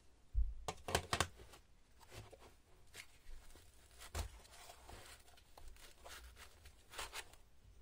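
Handling noise from unpacking a laser level kit. About half a second in there is a thump, then a cluster of clicks around one second as two plastic battery packs are set down on a wooden table. After that come scattered clicks and rustling as hands work at the foam insert and strap of the carry case.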